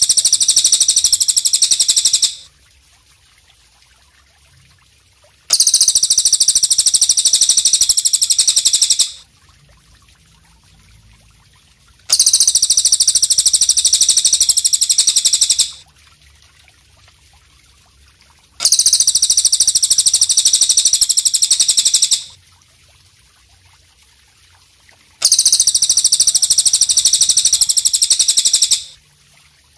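Belalang kecek, a katydid, stridulating: a high, buzzing trill of very rapid pulses at a steady pitch, about three and a half seconds long, repeated five times at even gaps of about six and a half seconds, with a faint hiss between the trills.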